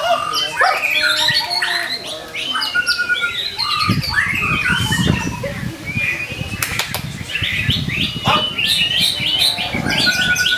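White-rumped shama (murai batu) singing non-stop: a rich, varied song of clear whistles, quick chirps and rapid rising and falling notes. Patches of low rustling noise lie under it at times.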